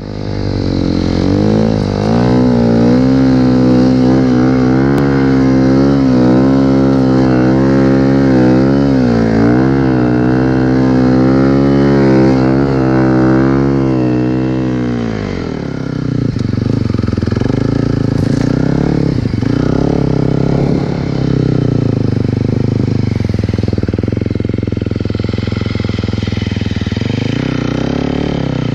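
Snowmobile engine running hard at high revs, its pitch swinging up and down with the throttle. About halfway through it drops to lower, rougher revs.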